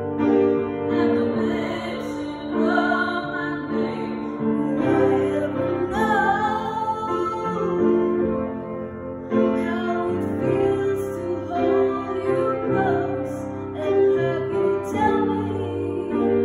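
A girl singing a slow ballad, accompanied on an upright piano.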